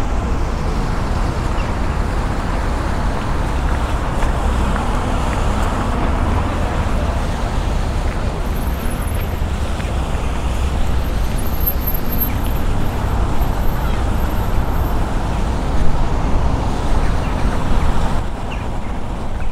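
City street ambience: steady road traffic passing, with a constant low rumble.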